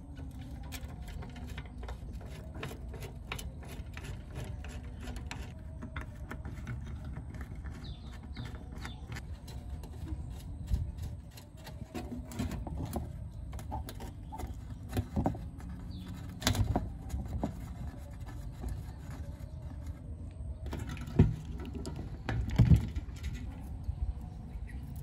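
Hand tools and fingers working on an old amplifier's metal chassis: scattered small clicks and scrapes, with a few sharper knocks, the loudest two a few seconds before the end. A steady low rumble lies underneath.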